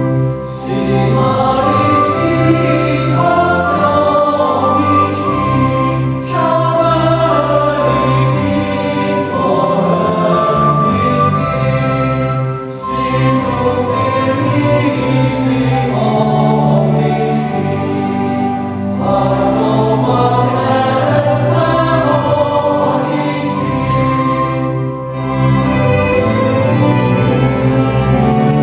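Mixed choir singing classical choral music, accompanied by a string chamber orchestra. The singing runs in long sustained phrases, with brief breaks about every six seconds.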